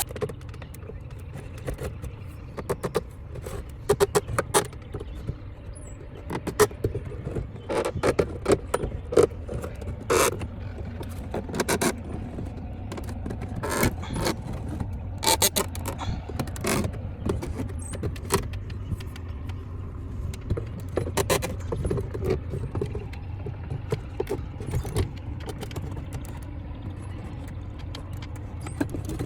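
Wooden door trim being pried loose by hand: irregular knocks, clicks and taps, busiest in the middle stretch, over a steady low hum.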